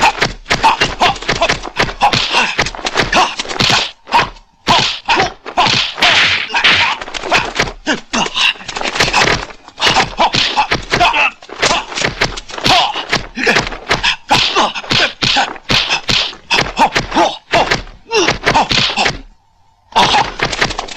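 Dubbed kung fu film fight sound effects: a fast, loud, nearly unbroken run of punch and block impact hits, stopping briefly about nineteen seconds in before one more burst near the end.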